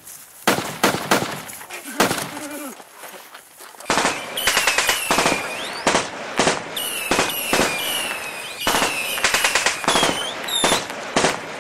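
Staged battle gunfire: rapid bangs like machine-gun bursts, starting about half a second in and coming thick from about four seconds on, with high falling whistles mixed in.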